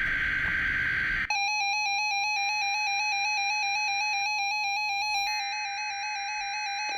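NOAA Weather Radio warning alarm test: the tail of a harsh, warbling SAME digital header burst gives way about a second in to the steady 1050 Hz warning alarm tone, which holds until just before the end.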